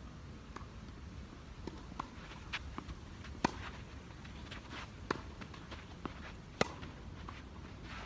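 Tennis ball being struck by rackets during a doubles rally: sharp pops, the two loudest about three seconds apart, with fainter clicks in between.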